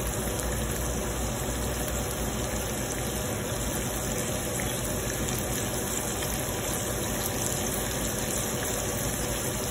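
Sliced onions and green bell peppers sizzling steadily in oil in a hot pan as they sauté.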